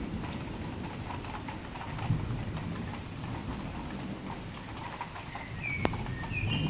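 Steady rain during a thunderstorm, with low rolling rumbles of thunder. A sharp click comes just before six seconds in, and a few short high chirps come near the end.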